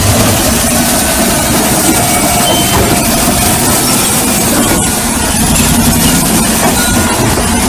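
A heavy machine's engine running steadily, a loud continuous rumble without breaks.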